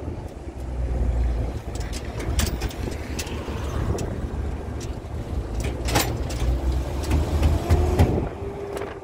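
A pickup truck driving along: steady low engine and road rumble, with scattered short knocks and rattles, the sharpest about six seconds in.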